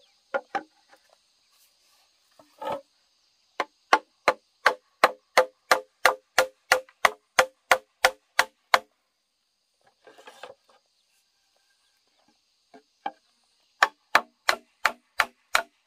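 Regular, sharp knocks on wood, about three a second, from a tool striking wood or bamboo, as in chopping or hammering. A long run breaks off past the middle, and after a pause a second run starts near the end.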